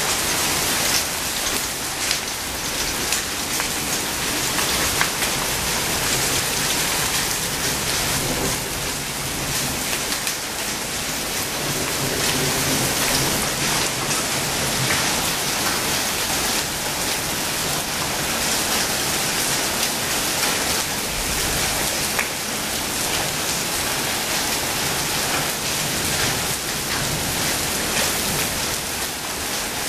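Steady rain falling on wet brick paving and hail-strewn grass, with many small sharp ticks of single drops striking, at the tail end of a hailstorm.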